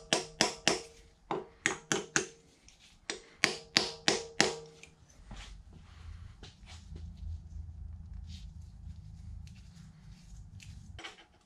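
Soft-faced mallet striking a punch set in the locking ring of a Bridgeport mill's ram pivot pin, the 'double punch method' of turning the ring tight without a spanner wrench. About a dozen sharp taps come in quick runs, each with a brief metallic ring. From about five seconds in there are only faint light clicks over a low rumble.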